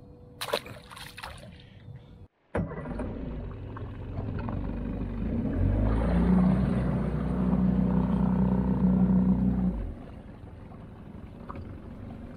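Small boat's motor running with a steady low hum that grows louder about five seconds in and cuts off near ten seconds. A few sharp clicks come first.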